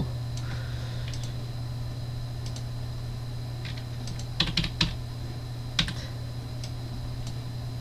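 A few scattered clicks of computer keyboard keys and mouse buttons, with a short cluster of keystrokes about four and a half seconds in, over a low steady hum.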